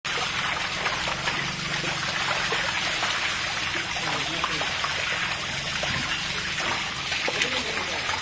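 Water running and trickling steadily across a wet tiled floor where live fish are laid out.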